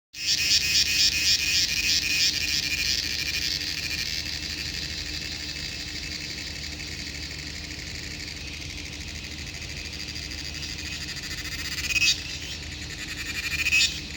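Cricket chirping: high-pitched pulsed chirps, about two to three a second at first, running into a continuous trill, with two short louder swells near the end.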